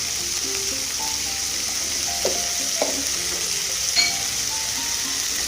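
Chicken pieces sizzling in hot oil and ghee in a kadai, a steady frying hiss, with a sharp metallic tap on the pan about four seconds in.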